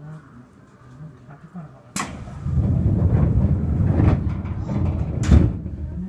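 Commuter train doors closing before departure: a sharp click about two seconds in, a few seconds of loud low rumbling, then a heavy thud as they shut.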